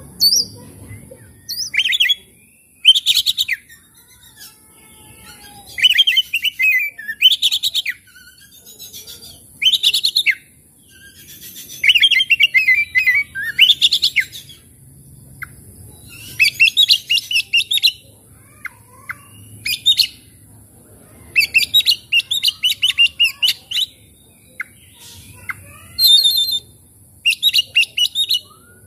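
Oriental magpie-robin (kacer) singing loud, varied whistled and chattering phrases in bursts about every one to two seconds, some of them fast trills, with short pauses between.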